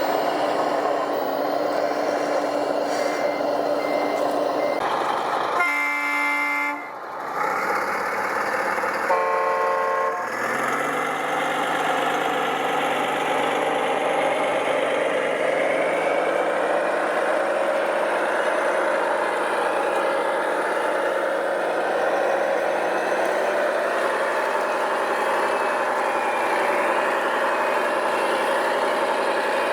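Truck engine running steadily, with a few short high beeps near the start. A horn blast comes about six seconds in and a second, higher horn about nine seconds in; after that the engine note climbs and settles.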